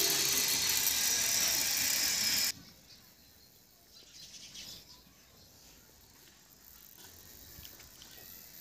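Small LPG transfer pump running as it pushes gas from a domestic cylinder through its inline filter into the car's tank, a steady mechanical noise with a strong hiss. It cuts off suddenly about two and a half seconds in, leaving only faint background noise.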